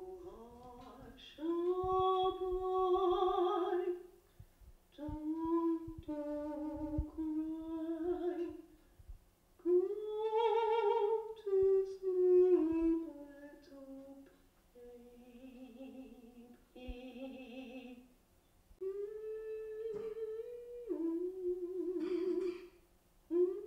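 A woman's voice humming a slow, wordless melody, lullaby-like, in long held phrases with short pauses between them.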